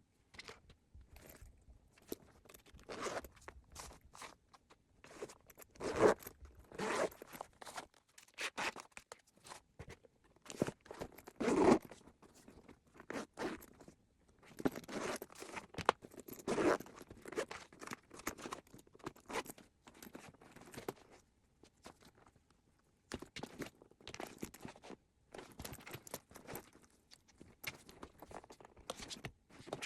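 A fabric backpack being handled and unpacked: irregular rustling, scraping and crinkling, with zips being run open and shut.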